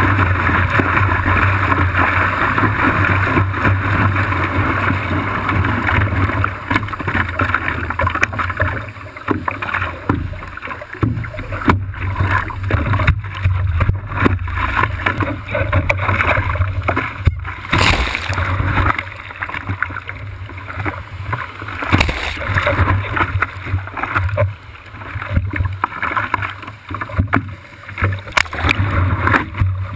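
Water rushing and splashing against a surfboard as it rides broken whitewash, loud and steady for the first several seconds. It then breaks up into choppier sloshing with sharp slaps of water against the board as the ride slows in the shallows.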